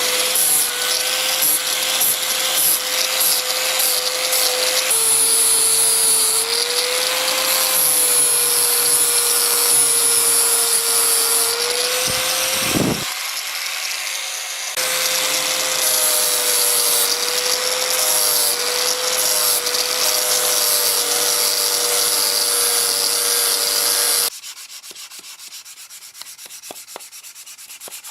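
Angle grinder with an abrasive disc running against a rusty steel silversmithing stake, a steady motor whine over a grinding hiss. About halfway through, the motor winds down and stops briefly, then starts again and runs until it cuts off near the end. A much quieter rubbing follows, like hand sanding.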